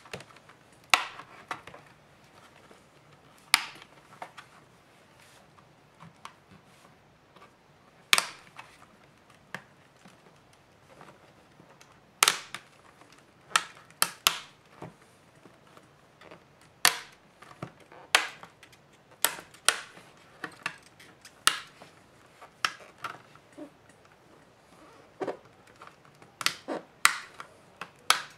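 Plastic snap clips of a Samsung Galaxy Tab 3's back cover clicking loose as a thin pry tool works along the seam. Sharp, irregular clicks come a few seconds apart at first and more often near the end.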